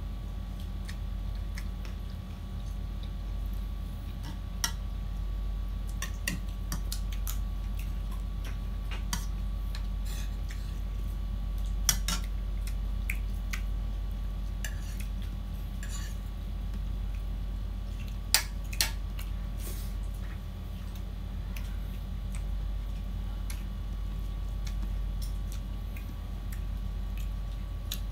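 Close-miked eating by hand: small wet clicks of chewing and lip-smacking, with a few sharper clinks of dishes about 12 and 18 seconds in, over a steady low hum.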